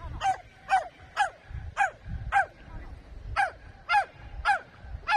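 Dog barking repeatedly in short sharp barks, about two a second, nine in all with a brief pause in the middle.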